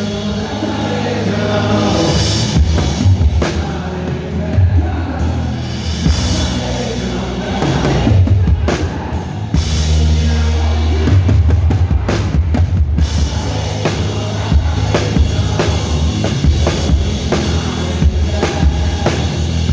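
Worship band playing: drum kit with kick and snare under sustained bass notes, the drumming growing busier near the end.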